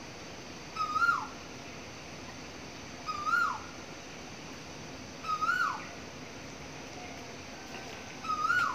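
An animal call repeated four times about two seconds apart: each a short note that rises, holds briefly, then slides down, over a steady background hiss.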